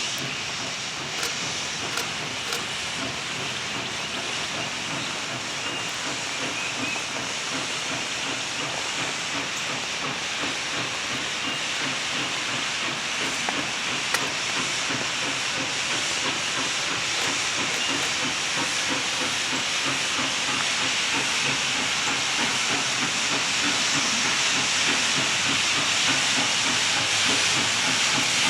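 Southern Railway 630, a 2-8-0 steam locomotive, hissing steam, growing steadily louder.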